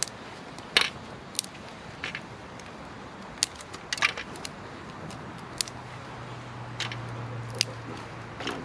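Scattered sharp snaps and clicks of small dry twigs being broken and laid onto a small fire in a disposable aluminium foil tray. A faint steady low hum starts about five seconds in.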